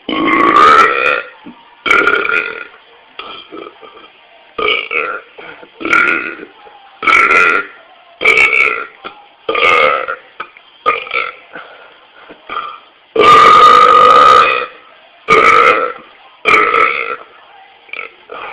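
A man burping over and over: about a dozen loud belches with short pauses between them, the longest and loudest one about 13 seconds in.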